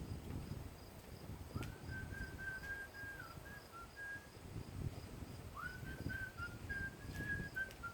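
Drill motor whining as it tries to turn the bolts holding the mower's cover: two runs of about two and a half seconds each, the pitch rising as it spins up, then holding with small dips. The drill fails to loosen the bolts.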